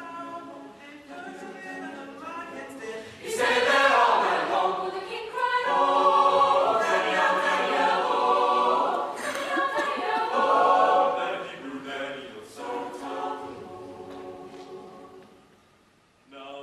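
Background music: a choir singing, swelling loud about three seconds in and fading away near the end.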